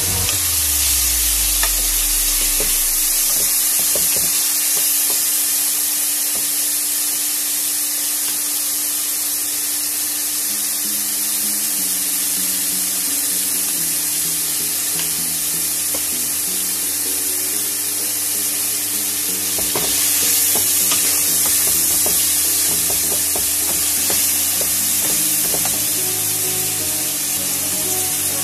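Diced chicken breast sizzling as it fries in a non-stick pot, with a wooden spoon stirring and scraping through it, over background music.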